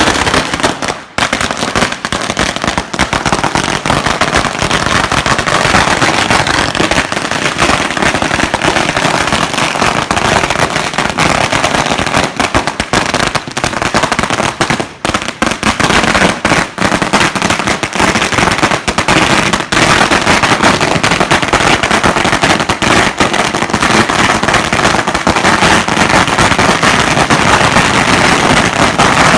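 A 10,000-wala firecracker string going off in a rapid, unbroken chain of loud bangs and crackles. There are brief lulls about a second in and again about halfway through.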